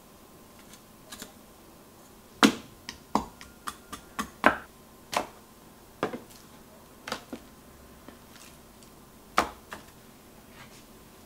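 Irregular sharp knocks and clicks of kitchen prep: a cleaver striking a wooden cutting board, and a plastic container and ceramic jars being handled on the counter. About a dozen knocks, the loudest and closest together a few seconds in, then a few scattered ones.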